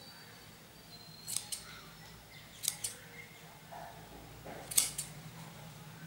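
Scissors snipping through folded loops of woolen yarn: three sharp snips over the few seconds, the last the loudest.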